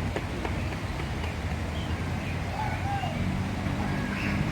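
Scattered short chirps and calls of aviary birds, with one lower curved call about three seconds in, over a steady low rumble of traffic.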